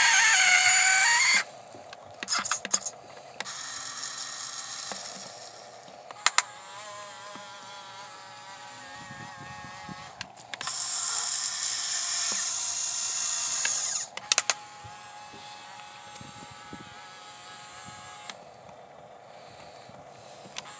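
Electric motors and gearboxes of a 1550 radio-controlled excavator whining under load as it works an oversized homemade bucket, loud for the first second or so and again for a few seconds in the middle, quieter between. A few sharp clicks from the gears come through, the strain telling on the drive.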